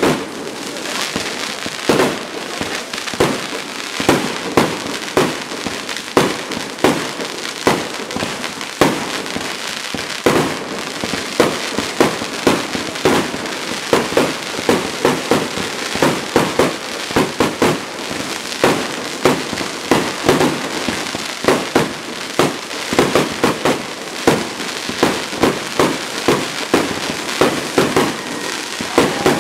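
Aerial fireworks display: a dense, rapid run of shell bursts and bangs, several a second, over a continuous crackle.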